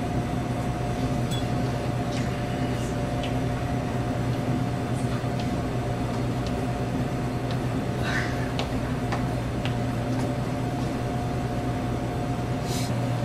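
Steady electrical machine hum, a low drone with a fainter higher tone above it, with a few faint ticks and taps scattered through it.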